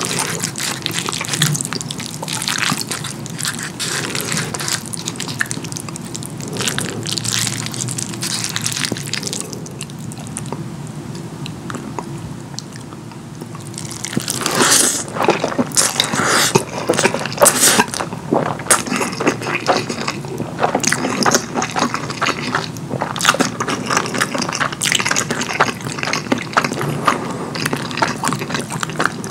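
Close-up wet eating sounds of saucy curry food: chewing with many small sticky clicks and squelches, softer for a few seconds past the middle, then sharper clicks again.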